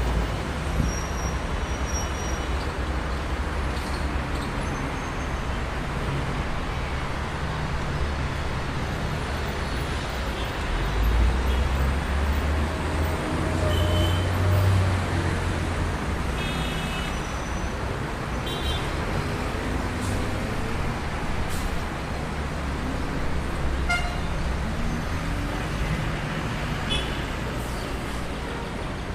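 Traffic jam street ambience: a steady rumble of idling and creeping car and bus engines, with several short car-horn toots scattered through. The low rumble swells louder for a few seconds around the middle.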